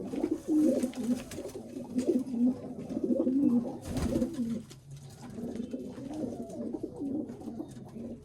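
Domestic pigeons cooing continuously, their low wavering calls overlapping, with a single sharp knock about four seconds in.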